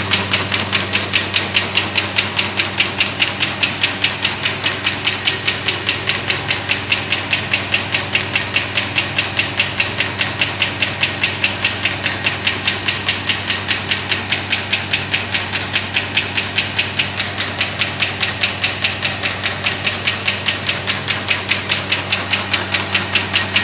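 Horizon AFC cross-folding machine running with paper sheets passing through it: a rapid, even clatter of about three to four clicks a second over a steady motor hum.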